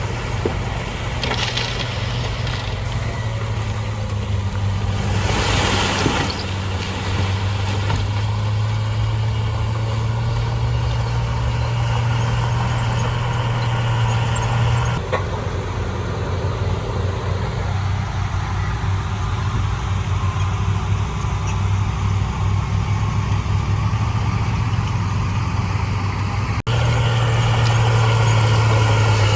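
Heavy diesel engine of an earthmoving machine running steadily with a low hum, a brief hiss about five to six seconds in. The engine sound changes abruptly twice, once midway and once near the end.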